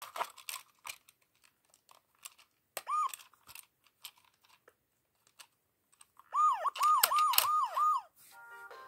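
Electronic siren of a VTech Go! Go! Smart Wheels police car toy: one short rise-and-fall wail about three seconds in, then five quick repeated wails a few seconds later. Clicks and rattles of the plastic toy being handled run through.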